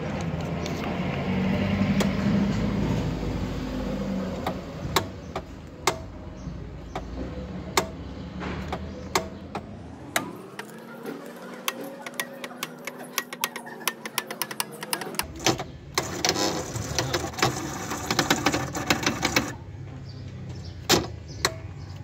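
Top-load washing machine's underside mechanism running: repeated light mechanical clicks, with a faint motor whine that rises in pitch about ten seconds in and fades about five seconds later. A fast run of clicks comes around sixteen to nineteen seconds in.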